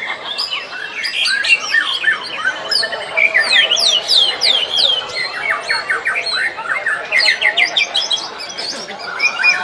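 Several white-rumped shamas (murai batu) singing at once in dense, overlapping song, full of rapid repeated sweeping whistles and fast trills.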